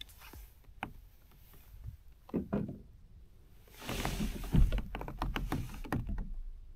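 Water splashing and knocks against a kayak as a pike is lifted from the water beside the boat, loudest about four to five seconds in with a heavy thump.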